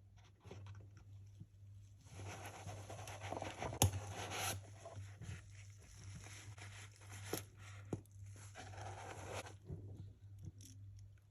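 Packaging rustling and scraping while a Seiko 5 Sports automatic watch is taken out and handled, with a few sharp clicks. A steady low hum runs underneath.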